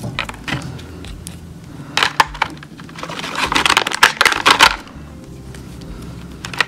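Small gel polish bottles clicking and knocking against a clear plastic blister tray as they are set back into it, with a dense stretch of plastic crackling about three to five seconds in.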